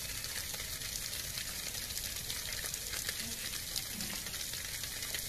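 A steady stream of water pouring from an outdoor tap and splashing onto the ground.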